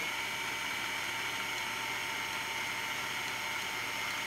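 Braun food processor motor running at a steady speed, with a high, even whine, its blade chopping garlic and ginger with oil into a paste.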